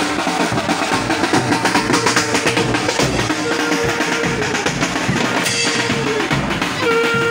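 Street band drums, a bass drum and snare drums beaten steadily in a marching rhythm, with a held note sounding near the end.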